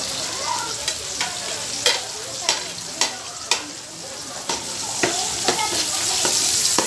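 Chopped onion and garlic sizzling in hot oil in an aluminium pot, with a spatula scraping and knocking against the pot as they are stirred, about twice a second.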